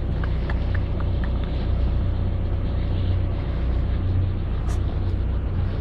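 Lugger yacht's engine running steadily at low revs, a constant low hum, with a few faint short chirps in the first second.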